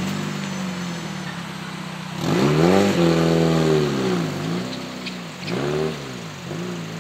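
Seibu 40000-series electric train's traction motors and inverter humming as it moves slowly through the station. The pitch is steady at first, then about two seconds in it grows louder and sweeps up and down in a series of arcs.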